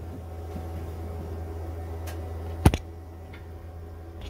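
Rotisserie spit motor running a chicken round inside a Beefer grill: a steady low hum, with one sharp click about two and a half seconds in.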